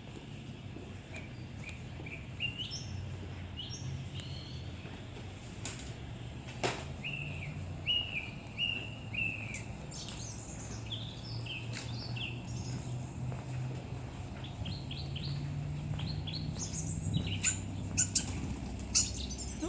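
Small birds chirping repeatedly, with short falling calls, then a flurry of wing flaps and sharp chirps near the end as birds are startled into flight. A steady low hum runs underneath.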